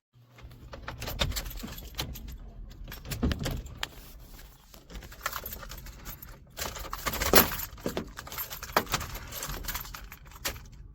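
Hard objects being handled: irregular clicking, clattering and jingling, loudest about seven seconds in, over a low rumble.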